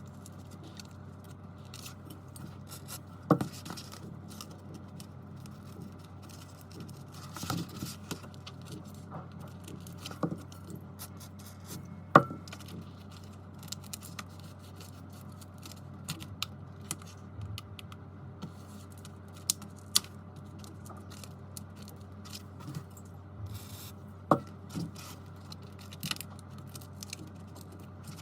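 Scattered light clicks, taps and scrapes of small hand tools working on an iPad's glass and frame, a few sharper ticks standing out, over a steady low hum.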